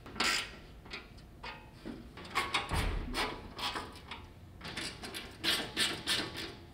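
A hand tool turning door bolts: short, irregular scraping strokes with light metal clicks as the hardware is snugged up, and a dull knock against the door panel about three seconds in.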